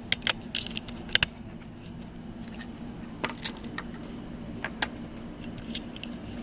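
Scattered light clicks and rattles of small hard objects being handled, a dozen or so irregular knocks with a quieter stretch in the middle.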